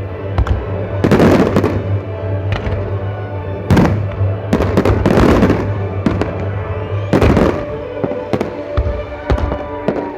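Aerial fireworks going off: sharp bangs and several longer crackling bursts, the biggest about a second in, near four and five seconds, and about seven seconds in. Music with a steady low bass note plays underneath.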